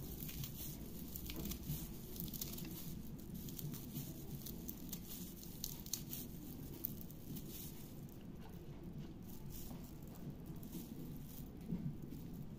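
Fresh chillies being cut into small pieces in the hand with a small blade, the pieces dropping onto chopped onion: faint, irregular crisp clicks over a low steady hum.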